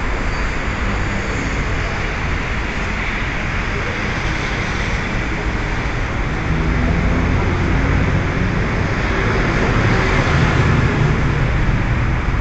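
Steady city street traffic noise, with a vehicle engine's low drone growing louder from about halfway through.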